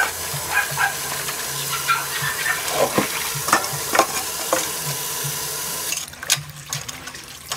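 Tap water running onto bunches of water spinach in a stainless steel bowl as hands rub and rinse the leaves, with splashing and small knocks against the bowl. The rush of water drops away about six seconds in.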